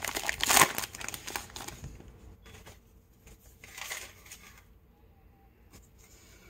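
A baseball card pack's wrapper being torn open and crinkled, loudest in the first two seconds, with one more short crinkle about four seconds in.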